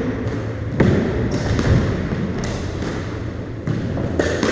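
A squash rally: the ball knocks sharply off the rackets and the court walls several times, at uneven intervals.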